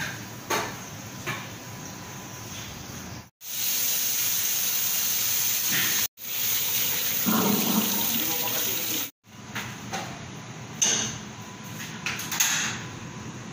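Kitchen tap running into a stainless steel sink as fish pieces are rinsed under the stream: a loud, steady rush of water for about six seconds in the middle, cut off abruptly twice. Before and after it, quieter room sound with a few light knocks.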